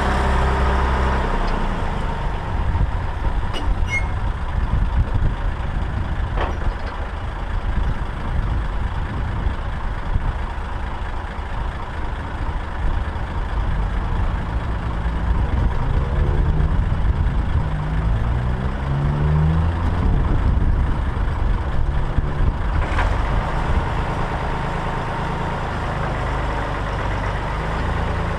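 Massey Ferguson 135 tractor engine running on the move, towing a baler. Its pitch drops and rises several times about halfway through as engine speed changes.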